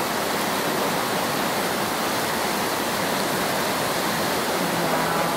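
Whitewater rapids on a fast river: a steady, even rush of water.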